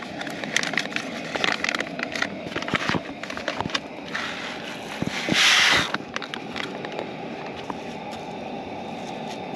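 A packet of Zatarain's jambalaya mix being opened with crinkling and small clicks, then the dry rice mix poured into the skillet in a loud short rush about five seconds in, followed by a few light scrapes of a spatula stirring it in.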